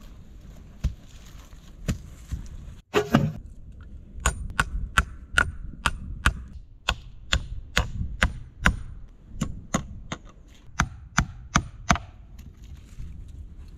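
Hatchet striking small wooden logs and crosspieces: a steady series of sharp wooden knocks, about two a second, after a loud clatter about three seconds in.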